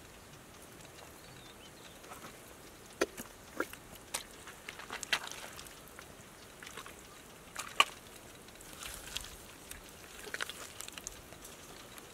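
Bare hands digging and squeezing wet mud and breaking up cracked clay: scattered wet squelches and short smacks, busiest from about three to eleven seconds in, the sharpest near eight seconds in.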